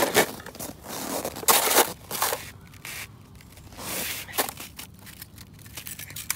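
Hands scraping and rustling objects, a run of short uneven scrapes, the loudest about one and a half seconds in.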